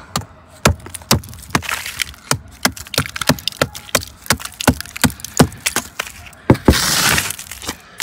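A hand tool striking and chipping frozen snow and ice caked onto the underside of a motorhome, about two to three sharp knocks a second, with a longer, noisier stretch about seven seconds in.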